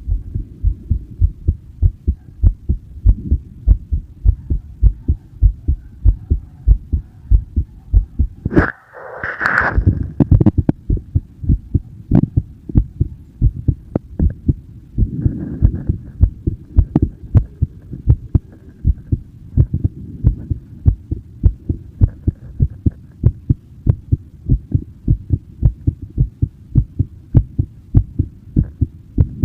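Human heartbeat, a steady run of low thuds about two a second. About nine seconds in, a brief rustling noise breaks in over the beats.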